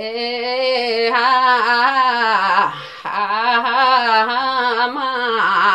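A woman singing a Limbu palam unaccompanied: two long phrases of held, wavering notes, with a brief breath between them about three seconds in.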